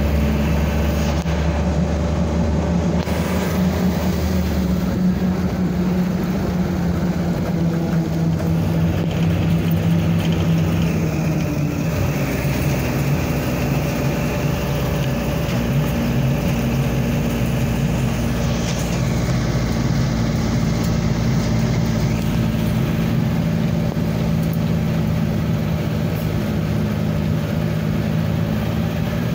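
A small truck's engine running as it drives along a road, heard from its open rear cargo bed along with road noise. The engine note shifts a few times as the speed changes.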